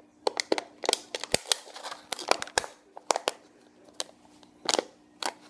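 A thin plastic water bottle crinkling and clicking in the hands as a rubber band is wound tightly around nylon stretched over its neck. The clicks come in quick irregular clusters through the first three seconds, with a few more near the end.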